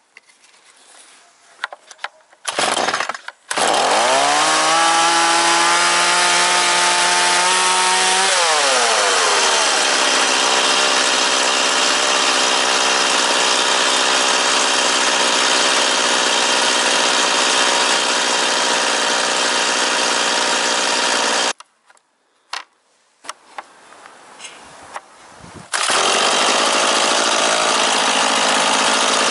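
Stihl MS 180 two-stroke chainsaw engine starting: it catches about three seconds in, runs up fast, then drops to a steady idle about eight seconds in. It cuts out about twenty-one seconds in and is started again near the end, idling steadily.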